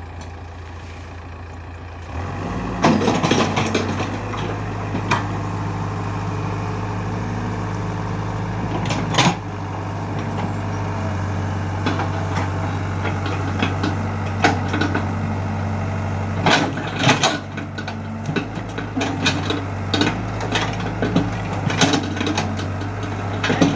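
Large diesel engine running steadily, growing louder about two seconds in, with sharp metallic clanks and knocks at irregular moments.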